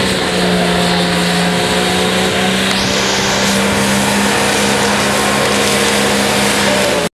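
Nissan Patrol's engine held at high, steady revs during a burnout, its rear tyres spinning and smoking on concrete, with a hiss of tyre noise under the engine note. It stops abruptly at the very end.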